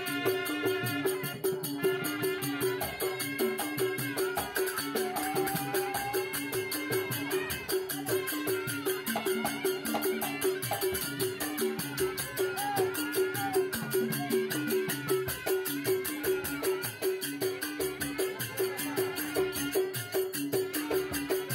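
Traditional-style music with a fast, steady percussion beat and a repeating melodic figure.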